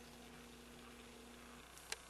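Near silence: quiet outdoor background with a faint steady hum that stops about a second and a half in, and a single sharp click near the end.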